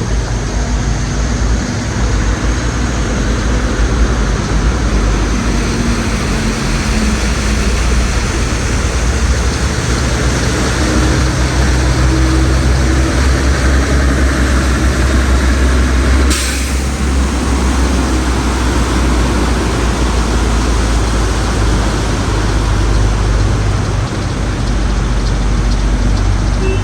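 Vehicle on the move: a steady low rumble with even road noise over it, and a short sharp click about sixteen seconds in.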